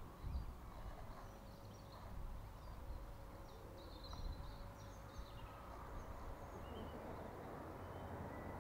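Small birds chirping on and off over a low rumble of wind on the microphone, with a faint steady hum through most of it.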